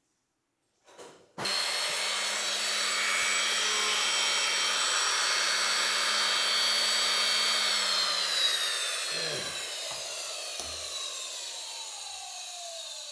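An electric power tool's motor switched on and running at steady speed, then switched off and spinning down, its whine gliding steadily lower as it coasts. A few light knocks come near the end.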